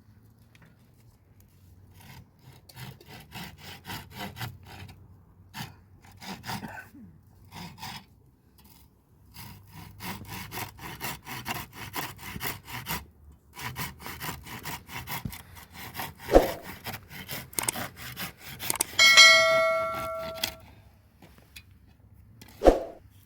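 Hand saw cutting through wood in rapid repeated strokes, in several bouts with short pauses. Twice there is a sharp knock, and between the knocks a brief metallic ringing is the loudest sound.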